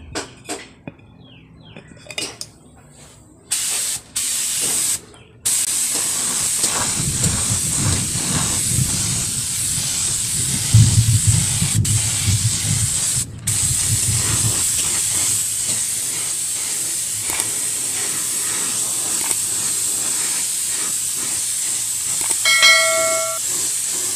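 Paint sprayer hissing as the first coat of paint goes onto sewing machine parts: two short spurts, then steady spraying from about five seconds in. A short chime sounds near the end.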